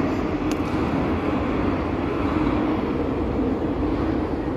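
Madrid Metro Line 6 train pulling out on the far track into the tunnel: a steady rumble with a steady hum, and a single short click about half a second in.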